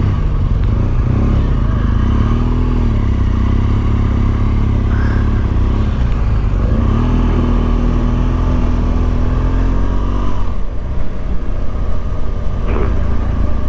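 Motorcycle engine running as the bike moves off and rides slowly, the revs rising and easing twice over a heavy, steady low rumble.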